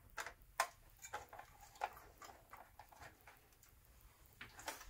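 A run of light, irregular plastic clicks and taps as the front cover of a Drayton Wiser wall-mounted heating receiver is handled and unclipped from its base.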